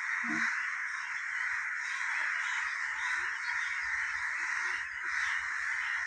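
Many house crows cawing continuously, their calls overlapping into one steady, dense chorus.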